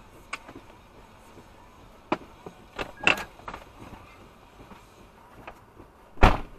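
Scattered knocks and clunks from a vehicle being pulled out of snow on a kinetic recovery rope, ending with a heavy thump a little after six seconds in.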